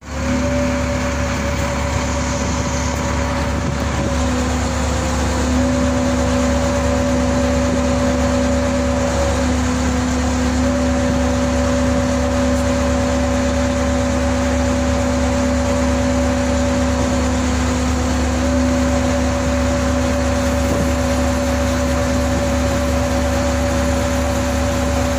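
Liebherr mobile crane's engine running steadily, with a steady whine over it.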